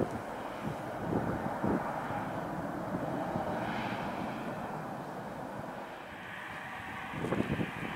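Twin-engine jet airliner taking off, its engines at takeoff power giving a steady rushing roar that fades slightly past the middle and swells again near the end. Low thumps of wind on the microphone about a second in and near the end.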